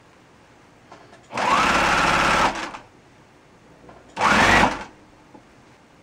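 Electric sewing machine stitching in two short runs, the first about a second and a half long and the second under a second. The motor's whine rises as it speeds up at the start of each run.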